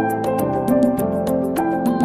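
Instrumental background music: held melodic notes over a quick, steady tick of about six a second.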